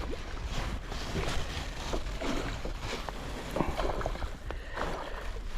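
Water splashing with irregular small knocks and clicks at the side of a small boat as a hooked pike is played and brought in.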